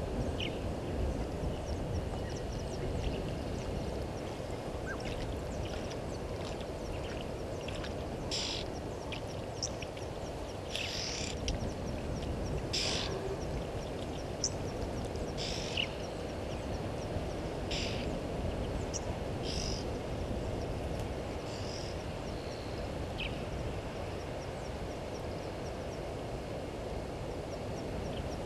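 Short, high bird calls, about half a dozen scattered through the middle stretch, over a steady low rumble and a faint, evenly repeated high chirping.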